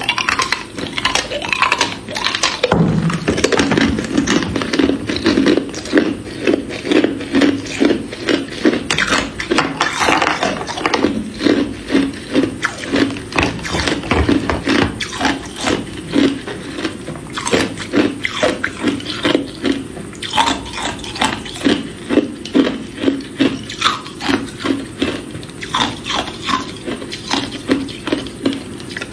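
Hard clear ice cubes being bitten and chewed close to the microphone: a long run of loud, sharp crunches, about two a second.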